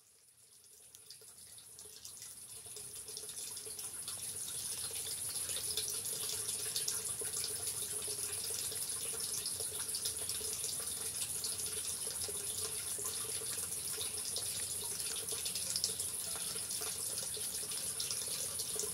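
A steady rushing hiss, like running water, fading in over the first four or five seconds and then holding even.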